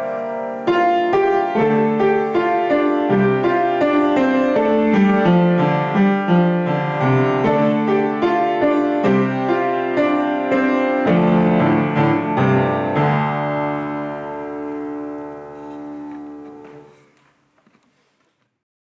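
Yamaha upright piano played: a steady run of struck notes and chords, ending on a long held chord that dies away near the end.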